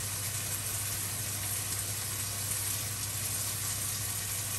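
Floured slices of pork liver sizzling steadily in hot oil in a non-stick frying pan.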